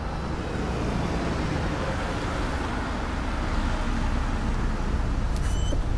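City street ambience at night: a steady traffic rumble with a car driving by. A brief high squeak comes near the end.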